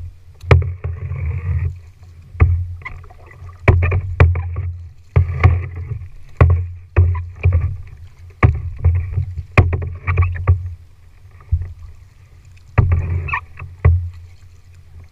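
Kayak paddle strokes on a tandem sit-on-top kayak: the blades splash into the water with sharp knocks, about one stroke a second, and ease off briefly near the end.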